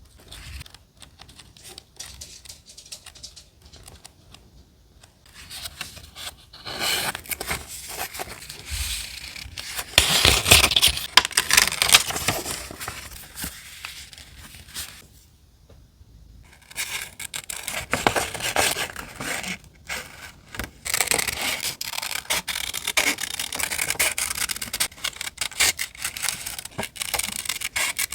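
Paper being rubbed and scraped by hand in journal collage work, in quick scratchy strokes. Quiet handling at first, louder rubbing from about six seconds in, a short lull in the middle, then steady fast strokes.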